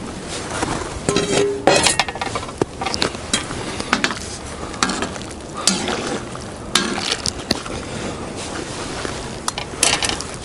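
Potatoes and carrots tipped from a metal bowl into a steaming kazan of boiling fish broth: repeated knocks and clinks of the bowl against the pot, over a steady sizzling hiss.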